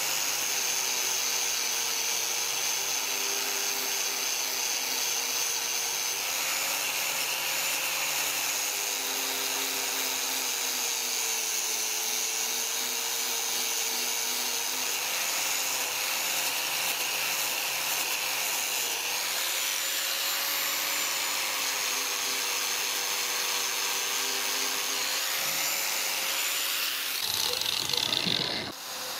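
Angle grinder with a wire cup brush scrubbing rust off a steel knife blade: a steady motor whine that wavers slightly in pitch as the brush loads against the metal, over a constant hiss of wire on steel. Near the end the sound changes as the brush comes off the blade, then cuts off.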